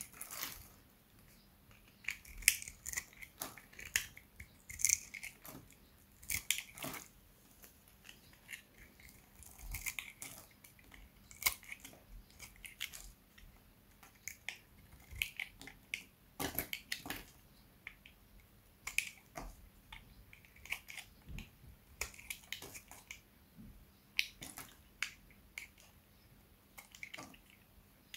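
Dry, hard soap crunching: irregular crisp crackles and snaps in short clusters, with brief pauses between.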